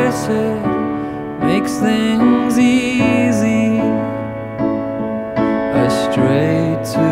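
A slow song with piano, here in a stretch without words.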